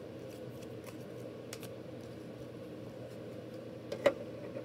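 A baseball card in a rigid plastic holder being handled and set against a plastic stand: a few faint clicks, then one sharp plastic click about four seconds in. A steady low hum runs underneath.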